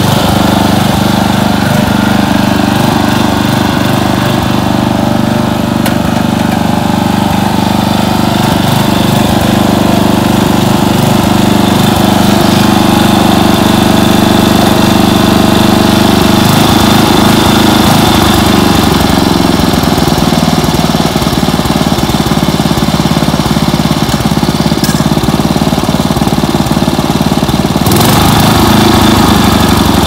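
1989 Dynamark 11/36 lawn tractor's 11 hp engine running steadily, its note changing about halfway through and again near the end. It revs up a little at high throttle, which the owner means to cure with a new carburetor.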